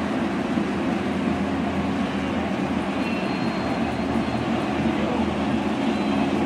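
Model trains running on a layout: a steady running noise of wheels on the track and motors, with no starts or stops.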